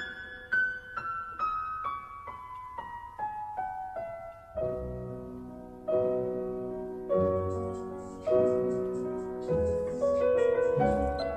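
Background piano music: a slow descending run of single notes, then fuller chords with bass notes and a light ticking beat.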